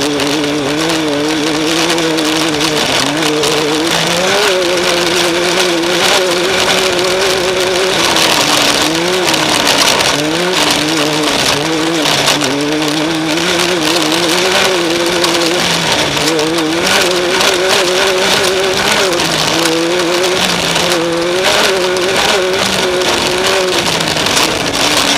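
Off-road race vehicle's engine running hard and continuously, its pitch rising and falling with throttle and terrain, under a steady loud rush of wind and dirt noise.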